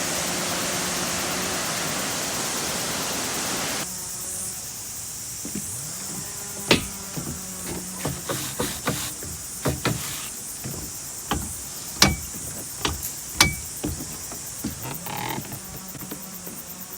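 Rushing water of a waterfall, a loud even hiss that drops abruptly about four seconds in. After that comes a quieter, duller hiss with a low hum and irregular sharp clicks and knocks.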